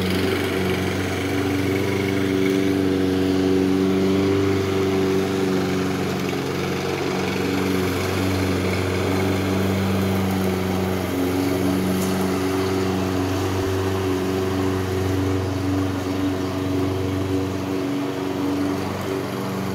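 Walk-behind gasoline push mower engine running steadily while mowing grass.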